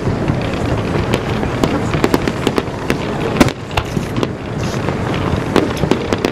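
Fireworks display: a continuous rumble of explosions with many sharp bangs and crackles going off several times a second at irregular intervals, the loudest bang about halfway through.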